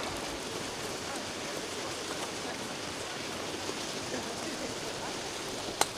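Steady outdoor background hiss, with one sharp click near the end.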